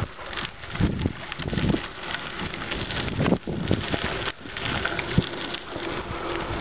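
Wind buffeting the microphone of a camera riding on a moving bicycle, over the rumble and rattle of the bike rolling along a gravel track, with irregular low thumps from bumps.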